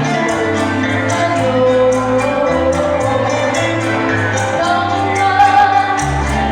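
Band music with a steady drum beat, a hi-hat ticking several times a second, a bass line changing notes every second or so, and a melody line on top.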